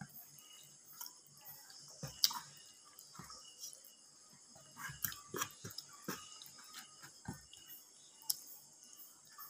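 A person eating rice and chicken curry by hand: faint chewing and mouth sounds, with scattered soft clicks and taps as fingers work the food on the plate.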